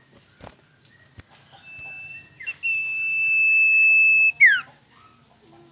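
Male common iora (cipoh) singing its 'sirtu' song: a short whistle, then a long, steady, high whistle held for nearly two seconds that ends with a quick falling note. A few faint clicks come before it.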